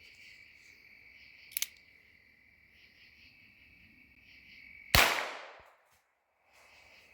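Night insects, crickets or similar, chirring steadily in a high, even trill. A short click comes about a second and a half in. About five seconds in there is a loud sudden rush of noise that fades away over about half a second.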